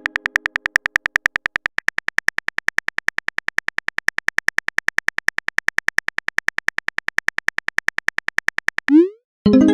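Rapid keyboard-typing click sound effect of a texting app, about nine even clicks a second. Near the end it gives way to a short rising swoop and a fading chime, the message-sent alert.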